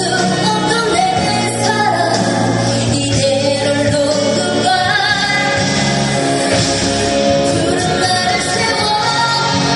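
A woman singing a Korean pop song live into a handheld microphone over full backing music.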